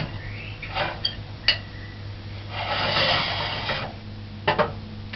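Kitchen handling noises: several sharp knocks of dishes being set down and moved, and a rubbing scrape lasting about a second just before the middle.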